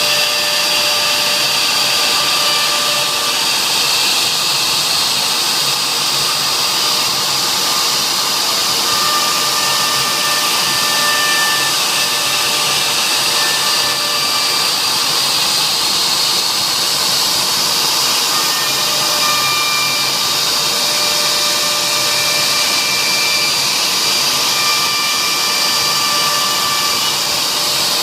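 CNC router engraving: a steady high spindle whine and cutting noise, with thinner whining tones that change pitch and come and go every few seconds as the machine moves.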